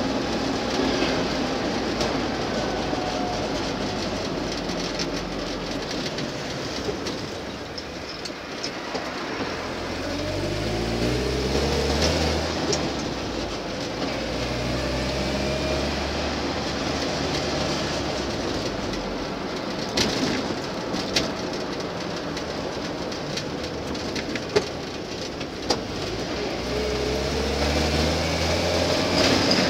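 Land Rover Series II engine and drivetrain running on the move, heard from the cab. The revs rise in a climbing whine about ten seconds in and again near the end, with a few sharp knocks and rattles between.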